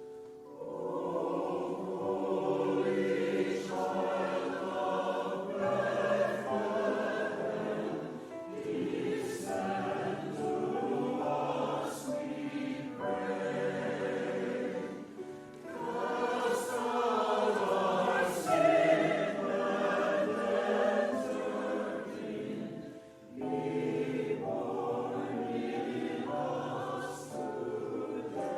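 Church choir singing a Christmas choral piece in sustained phrases, with brief breaks between phrases three times.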